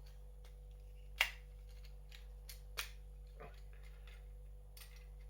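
Plastic joints and parts of a Transformers Kingdom Huffer action figure clicking as it is transformed by hand: a sharp click about a second in, a softer one near three seconds, and a few faint ticks between.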